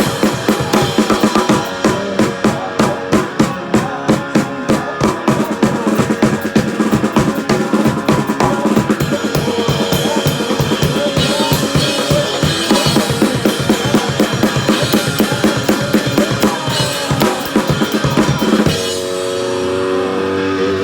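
A drum kit played in a fast, steady beat, bass drum and snare with rimshots, alongside other band instruments. About 18.7 seconds in, the drumming stops and a guitar rings on.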